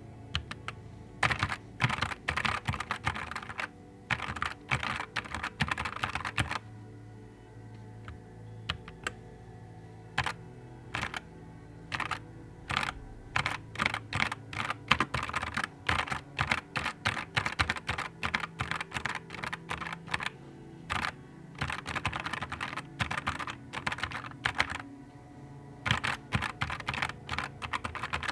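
Typing on a Nuphy Air 75 V2 low-profile mechanical keyboard: quick runs of key clicks in bursts, with short pauses between them.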